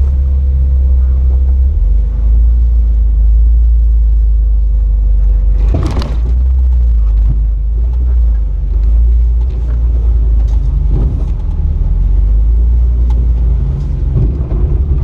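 Jeep Wrangler LJ's engine running with a steady low rumble on a rocky off-road trail. There is a sharp knock about six seconds in and lighter knocks near the end.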